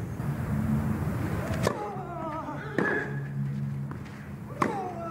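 Tennis rackets striking the ball in a baseline rally: three sharp pops, the first about a second and a half in, then one to two seconds apart.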